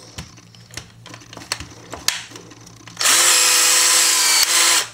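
Cordless drill running steadily for just under two seconds, starting about three seconds in and stopping sharply, as it pulls and sets a trifold 'exploding' blind rivet. Light clicks of the tool and rivet being handled come before it.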